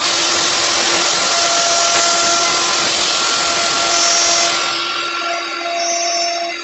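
A power tool starts up abruptly and runs steadily, a dense hiss over a constant motor whine. It eases off slightly about two-thirds of the way through.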